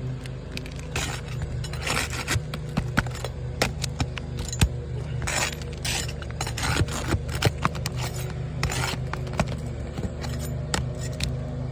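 Asphalt roof shingles being worked loose: repeated scraping with many sharp clicks and cracks at irregular intervals, over a steady low hum. The shingles are brittle, the condition this test is meant to show.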